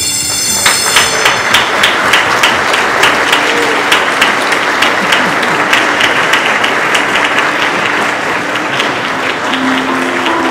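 A group of people applauding, with the ringing of the stock exchange's ceremonial bell dying away over the first couple of seconds.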